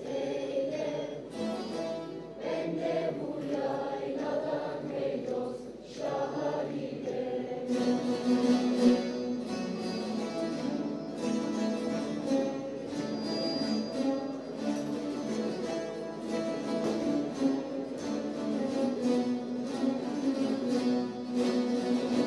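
A choir of children and teenagers singing with an ensemble of bağlamas, the long-necked Turkish saz lutes, strummed and plucked together. About eight seconds in, the plucked strings grow louder and busier.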